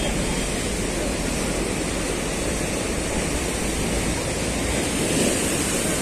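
Rough sea surf with high waves breaking and washing over shoreline rocks and concrete breakwater blocks, a steady rushing noise.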